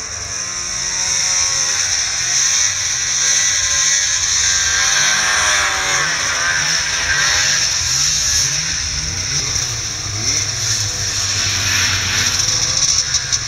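Snowmobile engine revving up and down under hard load as the sled climbs through deep powder snow.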